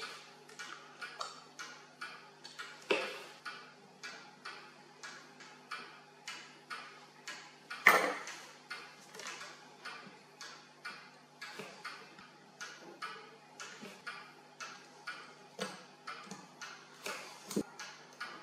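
Steady, even ticking, about two to three ticks a second, with two louder sharp metallic clicks about three and eight seconds in as steel tweezers and a screwdriver touch the pocket-watch movement's plates.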